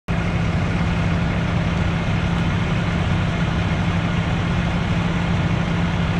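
Fire truck's diesel engine idling steadily, an even low hum.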